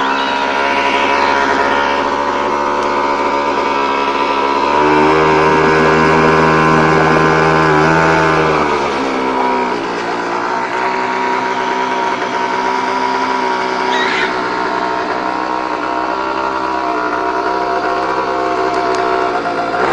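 Hangkai 3.6 hp outboard motor running steadily. About five seconds in it is revved up to a higher speed, held for a few seconds, then eased back down to a steady lower speed.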